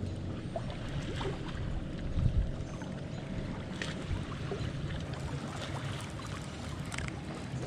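Water and wind noise around a small fishing boat: a steady low rumble with light trickling of water, a dull bump about two seconds in, and a few faint clicks.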